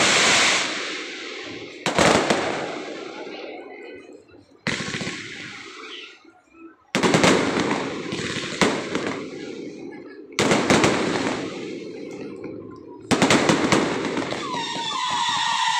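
Aerial firework shells bursting overhead: six sharp bangs one to three seconds apart, each fading over a second or so. Near the end a steady high tone comes in.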